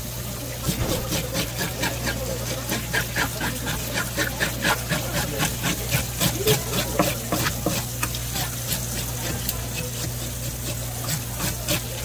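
Water splashing and dripping in quick, irregular splashes, over a steady low hum.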